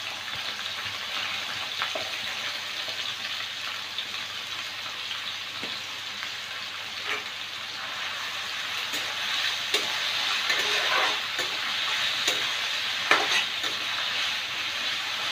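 Sliced onions sizzling in hot oil in a kadai as they start to fry, with a steel spatula scraping and clicking against the pan as they are stirred, more often in the second half.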